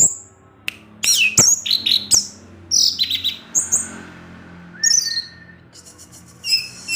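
Orange-headed thrush singing the chirpy 'ngecip ngecis' style of song: short phrases of sharp, high-pitched chips and quick down-slurred whistles, separated by brief pauses, over a faint low hum.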